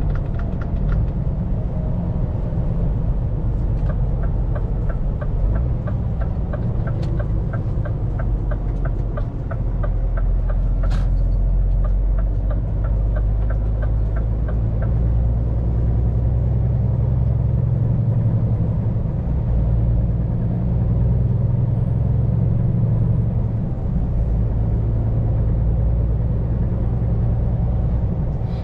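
Scania P410 truck's diesel engine running with road rumble, heard from inside the cab while driving. A regular ticking, about three a second, runs for roughly ten seconds from about four seconds in.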